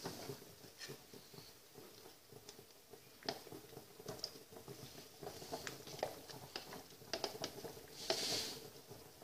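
Scattered light clicks and taps of a small stainless steel bowl being handled in a makeshift water bath, a pan of water on the stove hob, with a brief hiss about eight seconds in.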